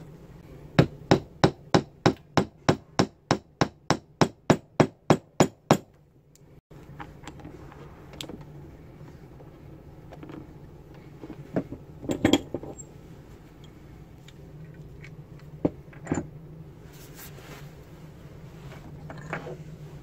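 Rapid, even hammer taps, about seventeen strikes over five seconds. These are followed by a few scattered metallic clinks and knocks as steel C-clamps are set and tightened over the wooden handle scales on the knife's tang.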